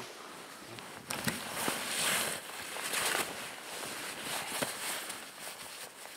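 Gloved hands and boots scraping and packing deep powder snow, with rustling of snow clothing: a run of hissing, crunching scrapes with a few sharp crunches, loudest in the middle.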